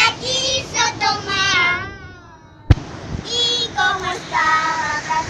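A high-pitched voice singing in short, bending phrases, with one sharp crack about two and a half seconds in.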